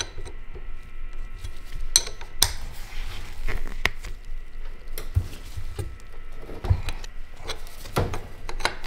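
Scattered metallic clinks and knocks as steel power steering line fittings are handled and fitted on the steering rack, several separate clicks spread a second or so apart.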